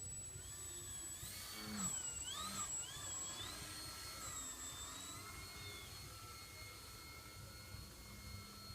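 Electric motor and propeller of a Crack Turbo Beaver RC plane in flight: a whine that swoops up and down in pitch several times between about one and three seconds in, then holds steady.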